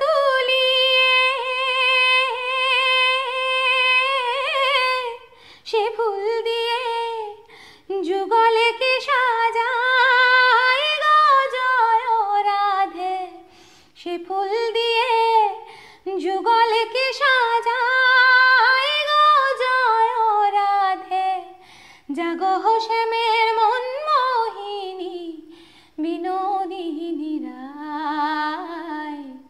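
A woman singing a Bengali devotional folk song (a Krishna bhajan), unaccompanied, in long held notes with ornamented glides. The phrases are broken by short pauses for breath, and the melody sinks lower near the end.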